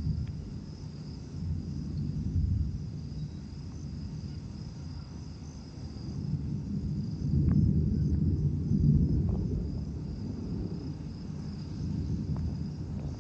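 Low rolling thunder that swells loudest about seven to nine seconds in, over crickets chirping steadily.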